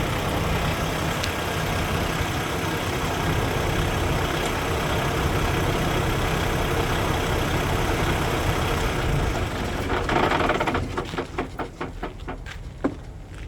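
A truck's diesel engine idling with a steady rumble that drops away about ten and a half seconds in. A run of quick, evenly spaced clicks follows, then one sharper knock near the end.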